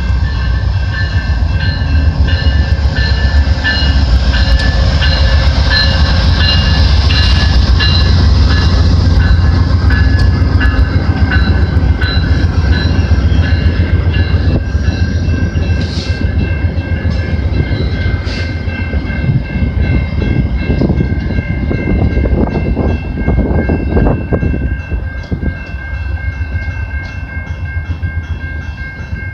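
VIA Rail passenger train led by P42DC diesel locomotive 903 with three coaches rolling past: a heavy low rumble with wheel clatter, and steady high ringing tones running over it. It eases off after about 20 seconds as the train moves away.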